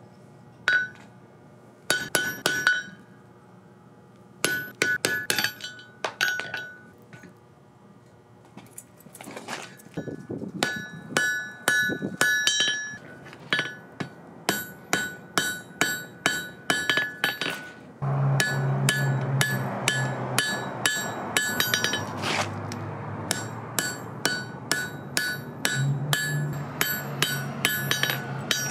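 Hand hammer striking hot steel on an anvil in bursts of quick blows, each with a bright metallic ring. From about halfway through, the blows come steadily, about two a second.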